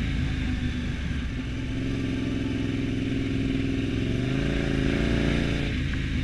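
Motorcycle engine running under way, its exhaust valves newly replaced. The pitch rises and falls gently with the throttle and drops about five and a half seconds in.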